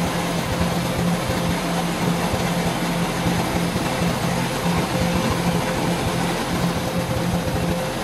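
Kubota DC-105X rice combine harvester running steadily at work, an even engine-and-machinery hum with no change in speed.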